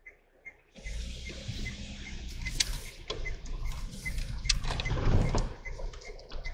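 Dacia Duster engine starting up about a second in and then running with a steady low rumble, with knocks and rattles from the car. A faint high ticking, about two or three a second, goes on throughout.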